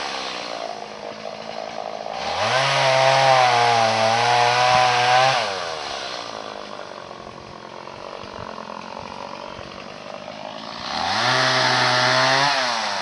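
Stihl 180 two-stroke chainsaw revved up and held at speed for about three seconds, then dropping back to idle. It revs up a second time near the end and begins to fall away.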